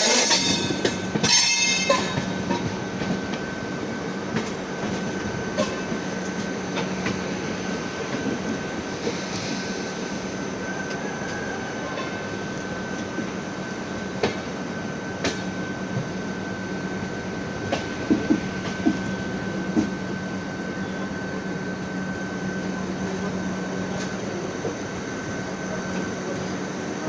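AC double-decker railway coach running, its body creaking, with scattered short clicks and knocks over a steady hum and rumble. The noise is louder in the first two seconds.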